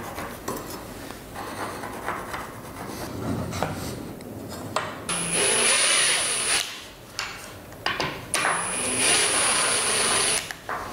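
Cordless drill running twice, each run lasting about a second and a half to two seconds with a high steady whine, boring into the top edge of a wooden door through the screw holes of the hanger brackets. Before that, light rubbing and handling sounds.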